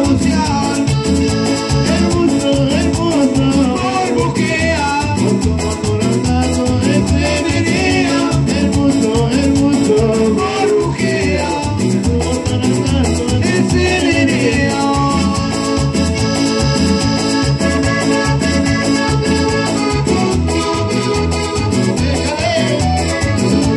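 A band playing Latin dance music live on accordion, electronic keyboard and electric guitar over a steady beat.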